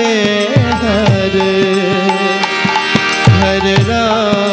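Indian-style intro music with tabla. The bass drum's pitch slides down after its strokes, under a melody line that bends in pitch.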